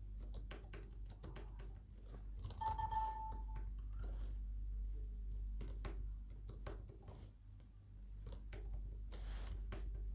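Keys of a slim Bluetooth keyboard being pressed in irregular taps while logging into a laptop. A single steady electronic beep lasts about a second, a little over two and a half seconds in.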